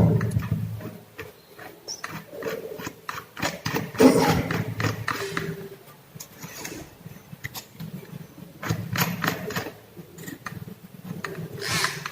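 Irregular clicks, knocks and rubbing as a drill's chuck is loosened by hand and a drill bit is fitted into it.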